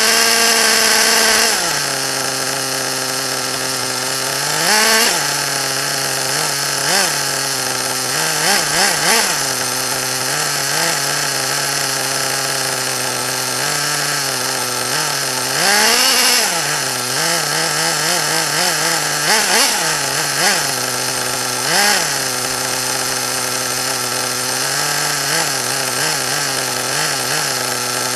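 RC buggy's small engine idling steadily with a buzzy, chainsaw-like note, blipped up in short revs again and again, with longer revs at the start and about halfway through.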